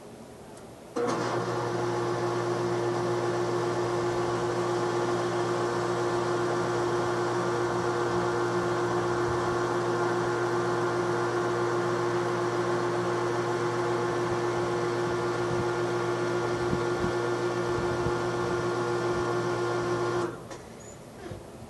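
A steady mechanical hum with several fixed tones, like a small motor or machine running. It starts abruptly about a second in and cuts off abruptly near the end.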